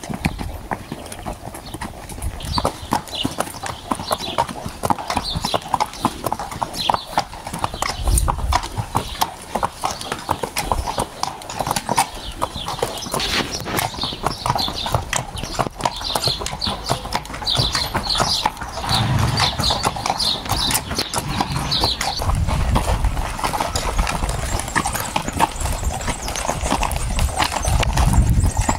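A ridden horse's hooves clip-clopping steadily on dirt and concrete tracks, with a thin continuous run of sharp hoof strikes.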